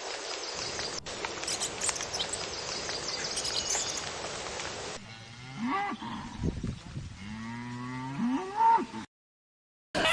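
Steady outdoor noise with a few faint bird chirps, then, after an abrupt change about five seconds in, a cow mooing twice, the second moo longer, each rising and falling in pitch.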